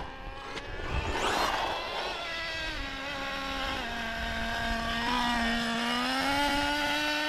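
A small nitro RC engine, the Traxxas Nitro Slayer's, running steadily at a fairly high idle while it warms up. Its pitch sags slightly partway through and then creeps back up.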